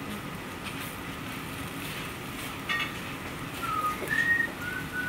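Bánh xèo batter sizzling in a nonstick frying pan as the pancake is folded with a spatula, with a short squeak about two and a half seconds in. In the second half, a run of five short whistled notes sounds over the sizzle and is the loudest sound.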